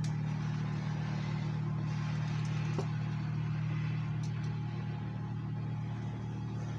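A steady low hum, with faint clicks about three and four seconds in.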